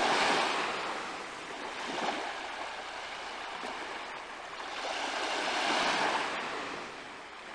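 Small waves washing onto a pebbly shore. The surf swells loud at the start, eases off, and swells again about five to six seconds in before fading.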